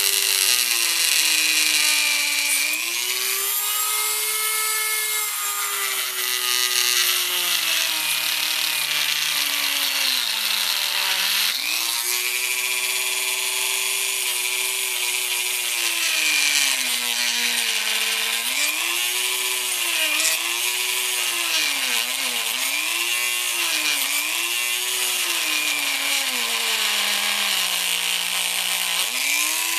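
Dremel rotary tool with a grinding bit grinding through an engine's dipstick tube: a high motor whine over a grinding hiss. Its pitch sags and recovers again and again as the bit takes load, with several quick dips in the second half.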